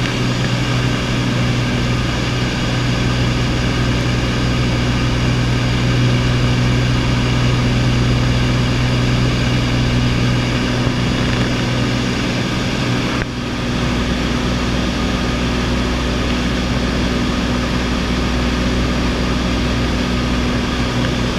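Single-engine light aircraft's engine and propeller droning steadily in flight, heard from inside the cabin as a strong low hum; the sound dips briefly about thirteen seconds in.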